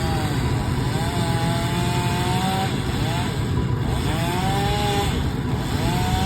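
A petrol engine running hard under changing load, its pitch dipping and climbing back again about every second and a half.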